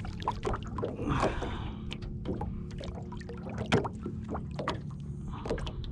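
Irregular clicks and knocks of gear being handled on a small fishing boat, over a steady low hum.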